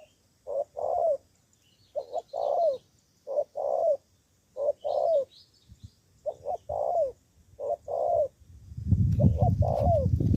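Spotted dove cooing repeatedly: a male decoy dove gives about seven phrases at a steady pace, each a short note followed by a longer note that falls at the end. A low rumble comes in near the end.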